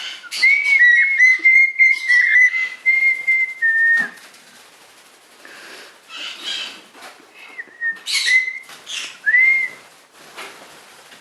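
A pet parrot whistling a tune in clear, steady notes for about four seconds, then soft scratchy chatter and a few short whistled notes near the end.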